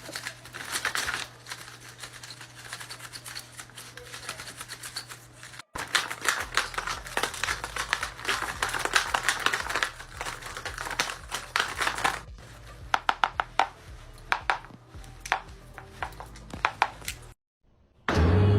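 Paper dragon puppet being worked by hand: quick, irregular clicks and paper snaps in short runs over a faint low hum. The sound cuts out briefly about six seconds in and again near the end.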